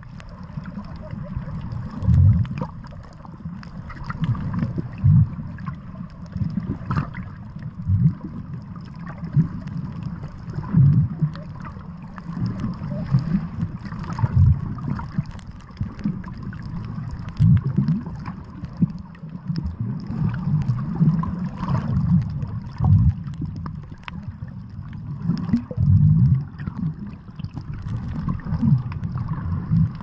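Water ambience heard underwater: a deep, steady rumble with irregular sloshing, gurgling surges every second or two and scattered faint clicks.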